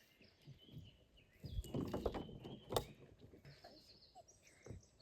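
Small birds chirping faintly in short high calls, outdoors by a lake. About halfway through come a few soft knocks and a sharp click.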